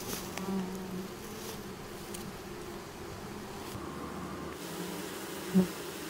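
Honeybees buzzing in a steady hum, with one bee passing close and loud about five and a half seconds in.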